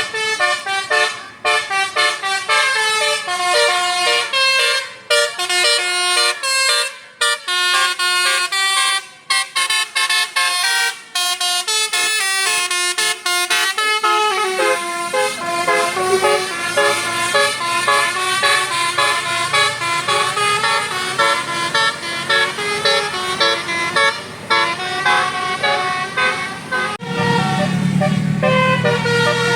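Indonesian bus's 'telolet basuri' melodic horn playing a tune of quick, stepping notes, choppy with short gaps at first. A bus engine's low rumble joins about halfway and grows louder near the end.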